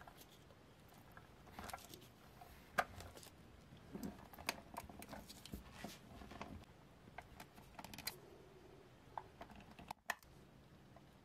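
Faint, irregular small clicks and taps, with one sharper click about three seconds in.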